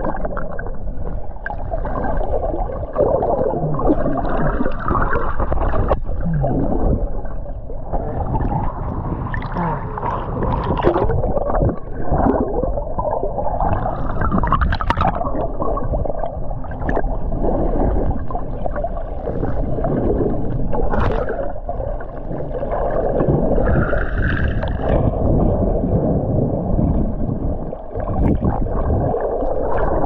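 Muffled underwater noise from a camera held below the surface: continuous gurgling and rushing water, with occasional brief bubbling flecks.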